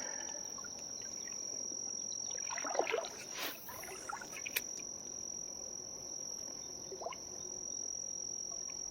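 Steady high-pitched insect trill, one unbroken tone, with a brief cluster of clicks and rustles about three seconds in.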